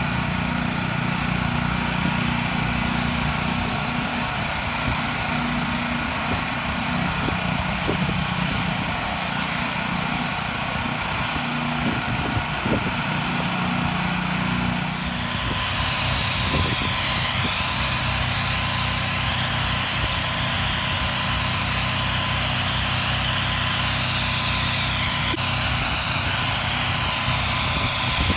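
Pressure washer engine running steadily under the hiss of high-pressure water spray on concrete. About halfway through the hiss grows stronger and starts to waver, as wand spray sweeps the surface.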